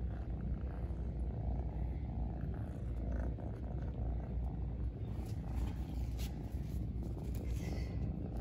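Kitten purring: a steady low rumble, with a few faint clicks in the second half.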